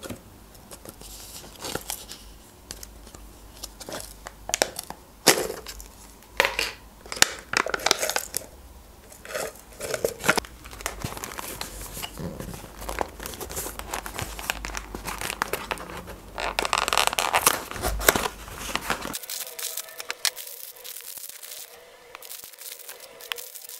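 Plastic wrappers of Barni sponge cakes crinkling and being torn open, with irregular crackles, rustles and light clicks of packaging handled on a table. A longer, denser crinkling near the middle, then quieter handling toward the end.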